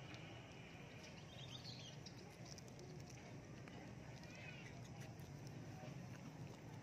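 Faint, brief high squeaks from a baby monkey, twice, about a second and a half in and again near five seconds, over a low steady hum.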